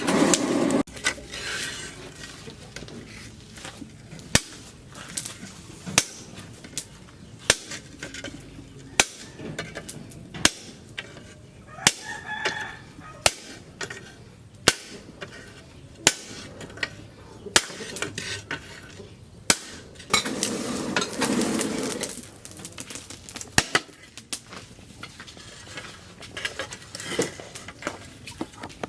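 Hand hammer striking steel on an anvil in a slow, even rhythm, about one blow every second and a half, while a blade is forged from plough-disc steel. A rooster crows about twelve seconds in, and a louder rushing noise rises for a couple of seconds near twenty seconds.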